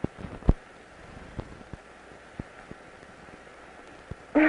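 Steady hiss with scattered clicks and pops from an old film's optical soundtrack, one sharp pop about half a second in. A brief voiced sound comes at the very end.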